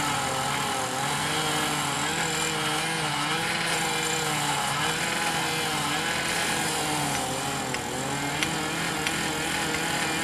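Engine of track-repair machinery running steadily, its pitch wavering up and down as the load changes, with a few sharp metallic clicks near the end.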